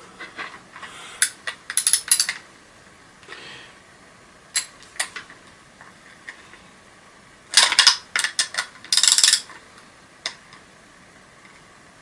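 Metal clicks and clatter of a Torx screwdriver and bit set being fitted together and worked at a stuck bolt inside an old vacuum cleaner. They come in several short bursts, the loudest in the second half.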